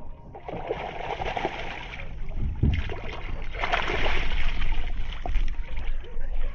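Water splashing as a hooked fish thrashes at the surface and is scooped into a landing net, in two bouts of splashing a couple of seconds apart.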